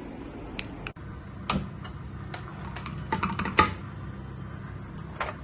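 Gas stove burner being lit: a run of sharp ignition clicks, densest and loudest around three to three and a half seconds in, with one more click near the end over a steady low hum.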